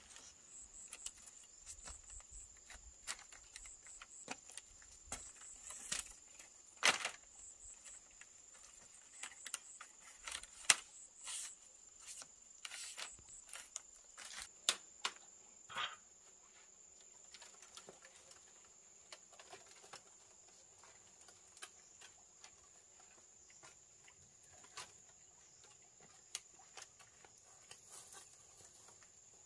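Insects trilling on one steady high note, with scattered clicks and knocks over it, most of them and the loudest in the first half.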